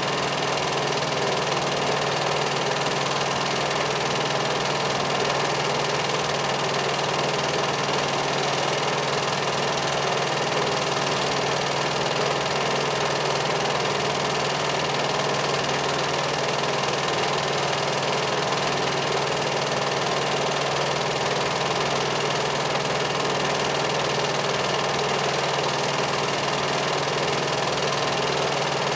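A film projector running, a steady, even mechanical noise with a constant hum.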